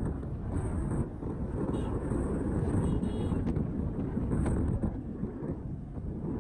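Wind rushing over the microphone of a motorcycle rider at speed, with the bike's engine and road noise running steadily underneath.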